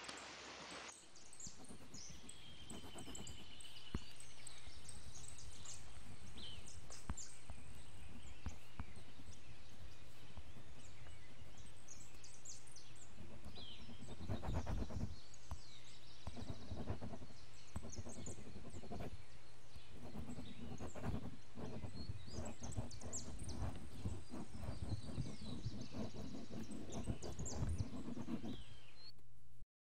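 Outdoor ambience: birds chirping intermittently over a steady low hum, with irregular low rumbles and thumps through the second half.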